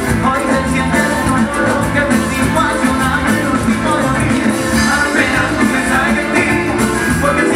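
Live band playing an upbeat Latin pop song, with a drum kit, congas, bass and electric guitar.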